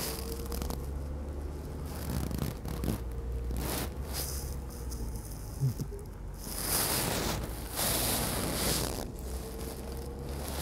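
Inside the cab of a slowly moving pickup truck: a steady low engine and road rumble, with irregular rustling and scraping noises over it.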